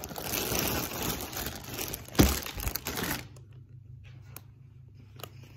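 Clear plastic packaging bag crinkling and rustling as it is handled, with one sharp thump a little after two seconds in. The crinkling stops about three seconds in, leaving a few faint clicks.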